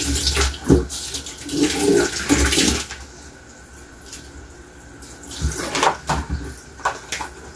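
Kitchen tap running into a stainless-steel sink, the water splashing unevenly as hands work under the stream; it quietens about three seconds in and picks up again near the end.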